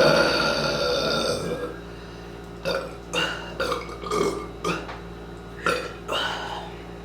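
A long, loud, smooth person's burp brought up by drinking carbonated Diet Pepsi, pitched and held, fading out about a second and a half in. It is followed by several short separate sounds.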